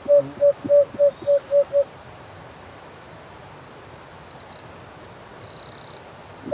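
Cupped-hand whistle blown in a quick run of short, identical hooting notes, about eight in the first two seconds at roughly four a second, then it stops. After that only a faint outdoor background with a thin high insect drone remains.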